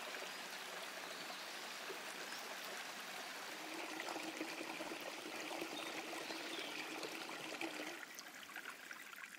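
Small spring-fed stream trickling and splashing steadily over rocks, easing slightly near the end.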